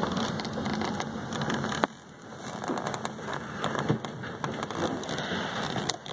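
Rushing wind and handling noise on a phone's microphone, with many scattered crackles and knocks; it drops suddenly about two seconds in, then builds again.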